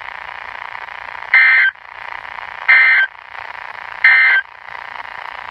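Emergency Alert System digital data bursts from NOAA Weather Radio: three short buzzing bursts about 1.3 s apart over steady radio hiss. Their shortness, coming right after the warning text, marks them as the end-of-message code that closes the alert.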